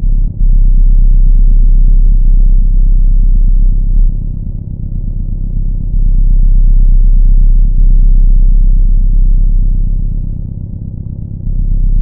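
A very loud, deep rumbling drone, with nothing above the low range, easing off briefly twice before swelling back.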